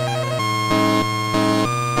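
Instrumental music with a steady, repeating rhythm and no singing.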